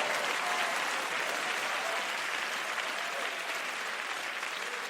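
Congregation applauding, the clapping slowly dying down, with a few faint voices calling out.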